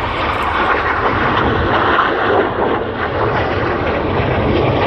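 Jet noise from the Red Arrows' BAE Hawk T1 jets flying their display overhead: a loud, steady rushing roar that swells slightly about two seconds in.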